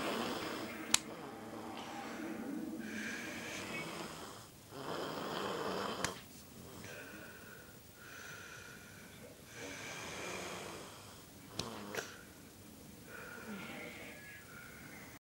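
Someone snoring in slow, rasping cycles of breathing in and out, a few seconds each, with a whistling wheeze on some breaths. A few short sharp clicks stand out, the loudest about a second in.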